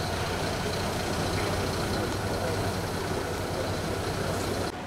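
Diesel engine of a Mercedes-Benz box truck running as the truck creeps forward, over a steady low industrial hum.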